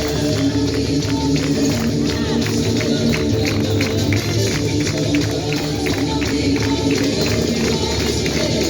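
Instrumental worship music with a steady rhythm, a tambourine jingling on the beat.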